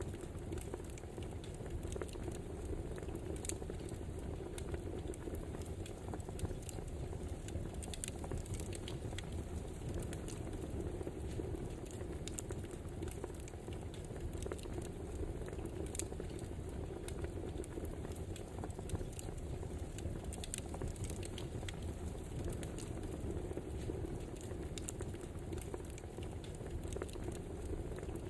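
Wood fire burning with a steady low rumble and hiss, and irregular sharp crackles and pops from the burning logs.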